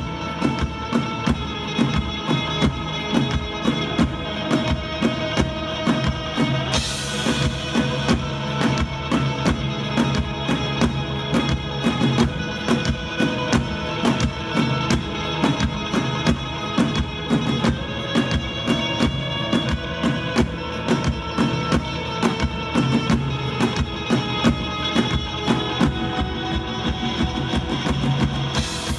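Live rock band playing: a drum kit keeps a fast, steady beat under bass and guitar, with a cymbal crash about seven seconds in and another near the end.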